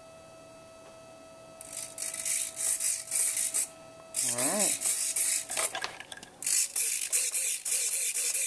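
Small electric motor with a pinion gear whirring in short bursts from about two seconds in, then more continuously near the end, spun up through the radio link to show that the modified transmitter still works.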